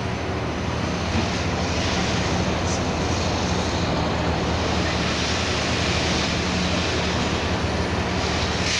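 Liebherr 954 excavator's diesel engine running steadily while it works its scrap grab: a low, even hum under a steady rushing noise, with no clear clanks of metal.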